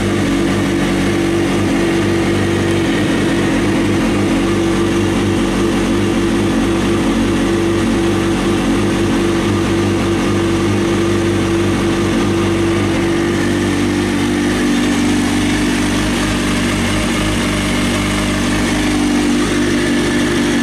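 Kawasaki ZX-6R's inline-four engine idling steadily.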